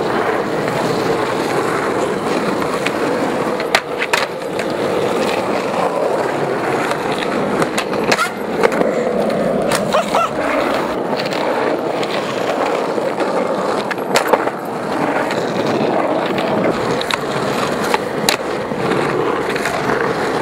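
Skateboard wheels rolling steadily over rough asphalt as the skater pushes along. A few sharp clacks and knocks of the board are scattered through it.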